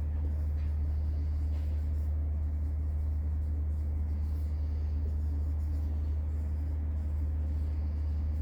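Steady low hum, with faint scratching of writing.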